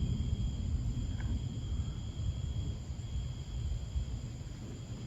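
Outdoor storm ambience: a low, uneven rumble under a steady, high-pitched insect chorus.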